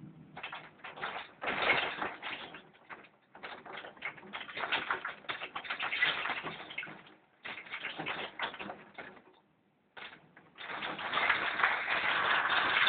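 Rain hitting a balcony: a dense patter of drops coming in louder and softer surges. It drops out almost completely for a moment about nine and a half seconds in, then comes back at its loudest.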